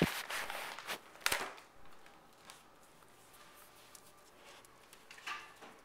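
Handling noise from a camera held close: a sharp knock at the start followed by rustling, a second knock about a second later, then quiet with one brief rustle near the end.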